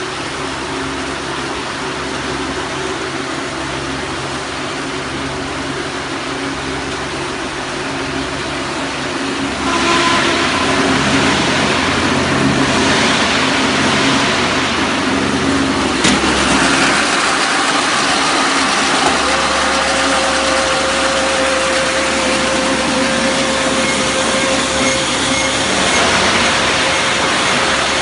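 Silage baler running on test: steady machine and engine noise that grows louder about ten seconds in, with a single sharp knock partway through and a steady whine coming in later.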